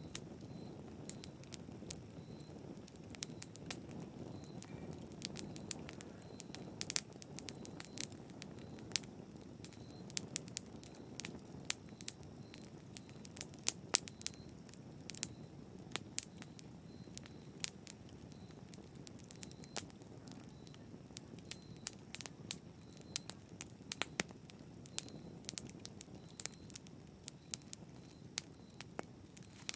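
Wood fire crackling in a fireplace: frequent, irregular sharp pops and snaps over a soft, steady low rush of burning.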